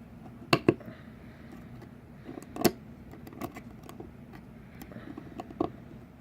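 Sharp metal clicks and taps as a retaining ring is worked around into the groove of a Warn lockout hub housing: a quick pair about half a second in, the loudest click near the middle, then a few lighter ones.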